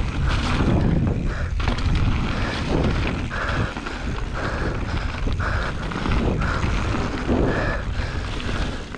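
Mountain bike descending a wet dirt trail: wind rushing over the camera microphone and tyres rolling over dirt, with scattered knocks and rattles from the bike over bumps.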